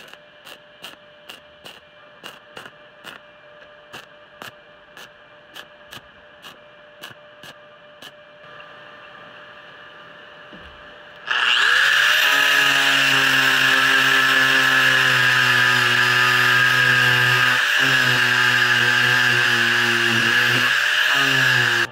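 Regular sharp ticking, about twice a second over a faint steady hum, during the welding for the first eight seconds. Then, about eleven seconds in, an angle grinder spins up and grinds the welded square steel tube with a loud, steady whine, winding down just before the end.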